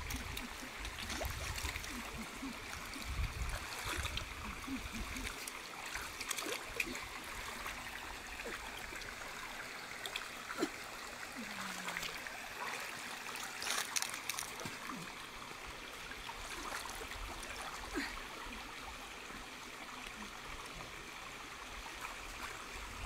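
Shallow rocky stream running and trickling over stones, with occasional small splashes of water as people wade and work their hands through it.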